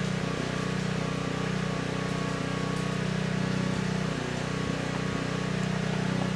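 Steady low mechanical hum with several held tones and a faint hiss, unchanging throughout.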